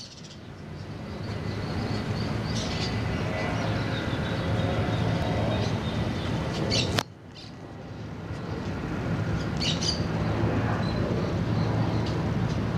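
Outdoor park ambience: a steady low rumble of distant road traffic with birds chirping a few times. About halfway through there is a click and a sudden dip in level, after which the background builds back up.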